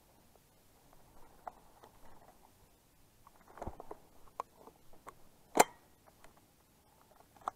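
Skis and boots moving through snow, with faint scattered crunches and clicks of gear, a cluster of knocks a little past halfway and one short sharp knock about five and a half seconds in.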